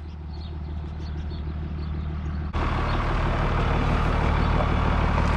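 Home-built mini Western Star truck's diesel engine idling steadily, suddenly louder about halfway through.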